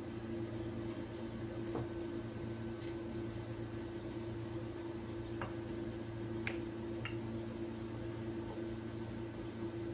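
Steady low hum, with a few faint light clicks and taps as a wooden rolling pin rolls out a round of dough on a plastic board.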